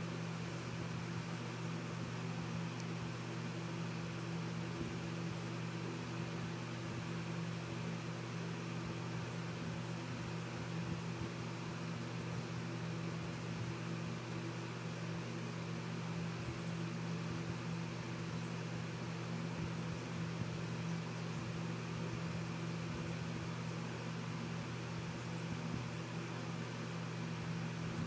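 Steady low machine hum, several constant tones over an even hiss, unchanging throughout.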